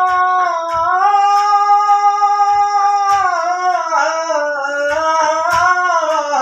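Music: a singer holds long, wordless notes that glide from pitch to pitch, over a few soft low drum beats.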